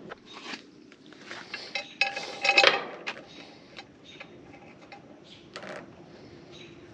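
Hand tools and metal engine parts clinking and rattling during engine assembly, with a louder burst of rattling about two seconds in and scattered light ticks after.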